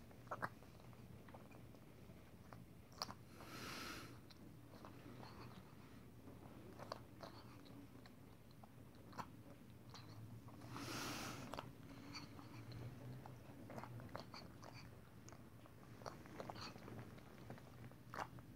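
A cat lapping white liquid from a plastic tub: faint, irregular small wet clicks of its tongue and mouth. Two longer soft hissing noises come about four and eleven seconds in.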